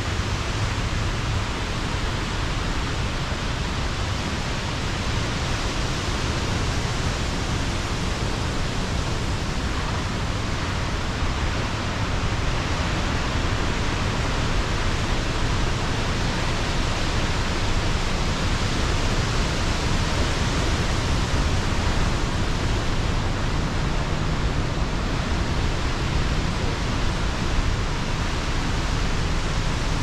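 Pacific Ocean surf breaking along the shore, heard as a steady, even rush with no single wave crash standing out.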